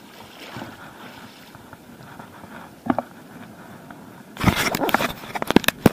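Close handling noise as a small grouper is unhooked by gloved hands: a single knock about three seconds in, then a loud rapid run of scraping and rustling from about four and a half seconds to the end, over a faint steady wash of shallow water.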